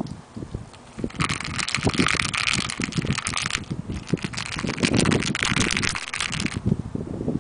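Two stretches of harsh crackling rustle, each a little over two seconds, with soft bumps underneath: Persian kittens tussling on a bedsheet right against the microphone.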